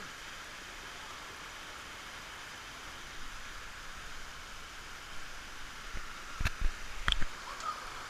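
Steady rush of a shallow stream running over rock slabs at a waterfall. Near the end, a few sharp knocks stand out above the water.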